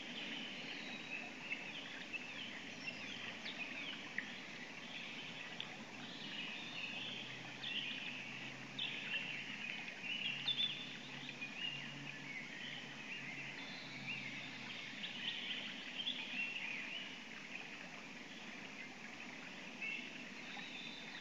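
Forest songbirds singing together, a dense layer of short chirps and trills over a steady background hiss. A faint low hum runs through the middle.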